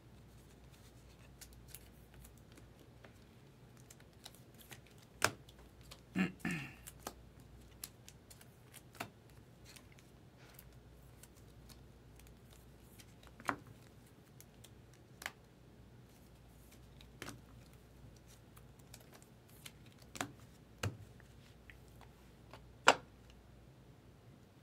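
Scattered sharp clicks and taps of trading cards and plastic card holders being handled and set down on a table, one every second or two, with a short cluster of rustling clicks about six seconds in and the loudest tap near the end.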